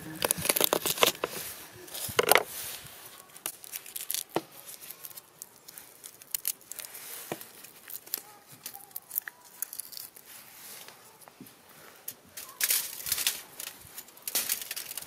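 A knife cutting garlic on a wooden cutting board, with crackling clicks for the first couple of seconds, then sparse small clicks. Near the end comes a loud stretch of aluminium foil crinkling as it is folded.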